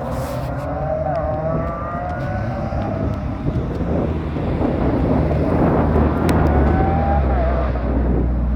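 Car engine running, with a dense low rumble and a thinner higher whine that rises near the start and again about six seconds in.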